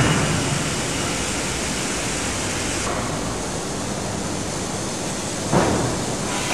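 Steady, loud noise around an 18-ton hydraulic closed-die forging hammer. The preceding hammer blow dies away at the start, and there is one short, sharp knock about five and a half seconds in.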